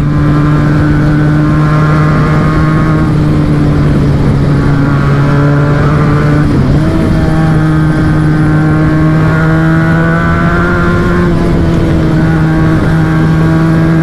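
Benelli Tornado 302R's parallel-twin engine running steadily at highway cruising speed over rushing wind noise. About halfway through, its pitch dips briefly, then climbs slowly as the bike accelerates and eases a little near the end.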